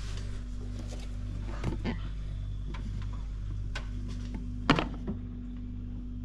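Light clicks and taps of a plastic drain-cleaning tool being worked in a fridge's drain hole, with one sharper knock a little before the end, over a steady low hum.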